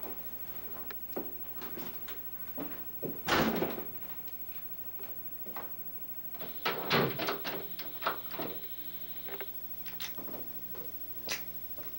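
Wooden interior door handled: a loud knock of the door shutting about three and a half seconds in, then a cluster of knocks and clicks from the door and latch about halfway through, with small scattered clicks around them.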